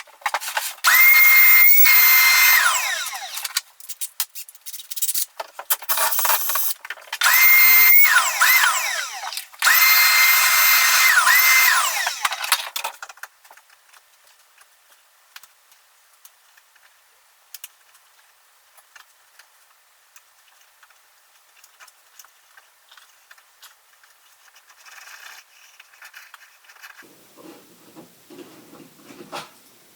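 Power drill run in three trigger bursts in the first half, each spinning up to a steady high whine and winding down, the last two close together. After that, only faint handling clicks.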